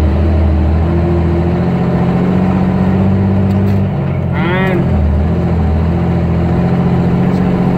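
Small-cam Cummins diesel of a heavily loaded M923A1 military truck pulling steadily under load, heard from inside the cab. The engine note changes about a second in and again around five seconds, and a brief high chirp is heard shortly before the second change.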